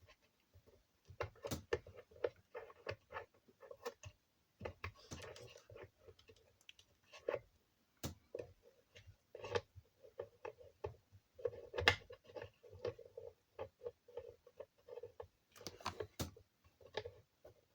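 Faint, irregular clicks and light metallic scraping as a tailstock chuck is handled and tried onto the threaded tailstock of a micro lathe.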